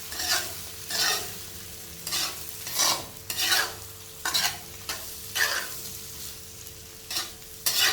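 Chopped ginger, garlic, carrot and other vegetables sizzling in hot ghee in a pan, stir-fried with a spatula. There are about ten irregular scraping strokes over a steady sizzle.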